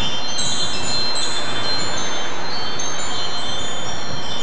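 Wind chimes ringing, with many high tones overlapping and dying away, over a steady even hiss.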